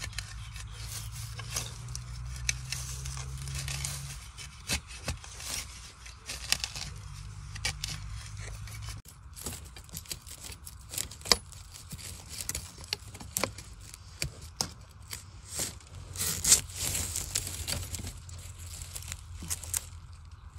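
Dry bamboo leaf litter crackling and rustling, with scrapes and sharp clicks of a metal digging bar and knife as a bamboo shoot is dug out and cut from the soil.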